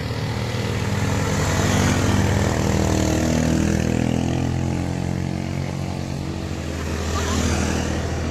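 Motorbikes and scooters passing one after another. The engine sound is loudest about two seconds in and drops in pitch as the bikes go by, and another bike swells past near the end.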